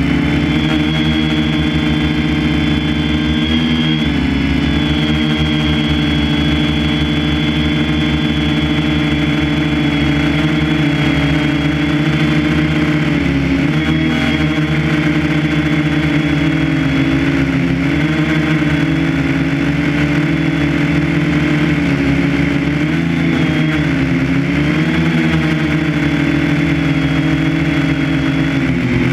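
A motor running steadily, its hum wavering slightly up and down in pitch every few seconds.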